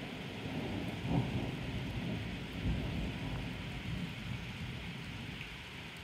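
Thunder rumbling low over the steady hiss of rain. The rumble swells about a second in and again shortly after, then dies away.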